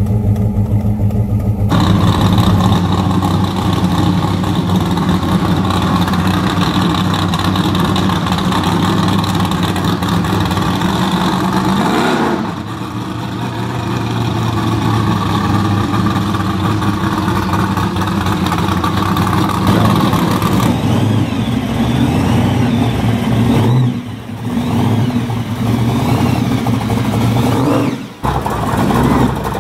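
Modified V8 engines of pro street muscle cars, loud, running and revving as the cars drive past. The sound changes abruptly several times as one car's engine gives way to the next.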